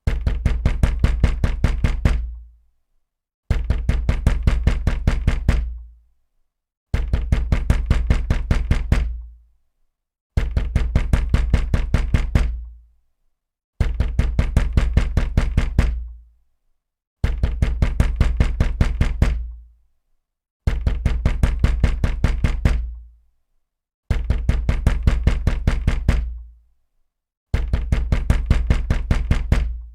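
Heavy, rapid banging on a wooden door: bursts of about two seconds of quick blows, several a second, each burst fading out and followed by a brief silence. The pattern repeats nine times, every three and a half seconds.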